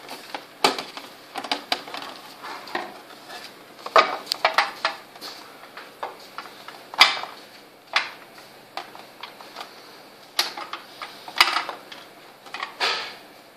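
Hard plastic parts of a Beyblade stadium being handled and fitted together by hand: irregular clicks, taps and knocks, with a few louder knocks spread through.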